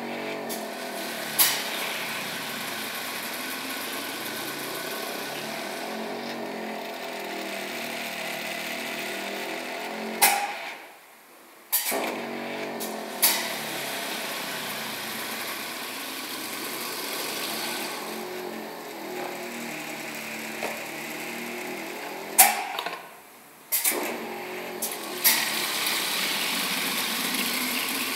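Air-operated liquid filling machine running through its cycles: a steady mechanical whir punctuated by sharp pneumatic hisses and clicks. Twice it goes quiet for about a second, then starts again with a click, about every twelve seconds.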